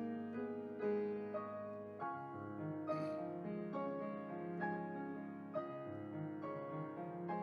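Slow instrumental piano music, with chords struck about once a second over a held bass note. A brief rustle comes about three seconds in.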